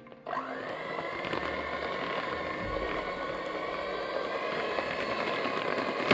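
Electric hand mixer switched on just after the start, its whine rising as the motor spins up and then running steadily while the beaters whip butter cream as custard base is added. A few light clicks near the end.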